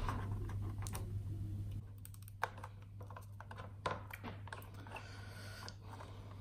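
Faint handling noise of a thin metal drive shield being fitted over an M.2 SSD and a small screwdriver set to the screw: scattered small clicks and taps, with two sharper clicks about two and a half and four seconds in, over a low steady hum.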